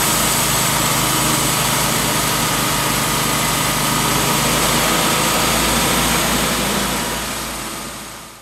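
Timberking B-20 portable sawmill's engine running steadily, fading out near the end.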